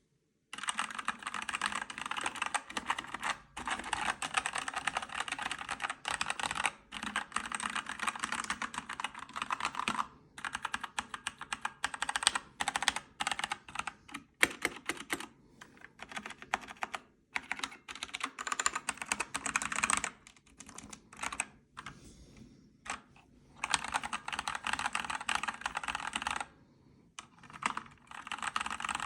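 Typing on a Havit 60% mechanical keyboard with red (linear) switches: dense runs of rapid keystroke clacks, broken by short pauses and a few slower, sparser stretches.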